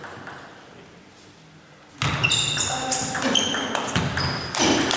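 Table tennis rally: the ball clicks sharply off the bats and table about three times a second, starting about two seconds in after a quieter moment.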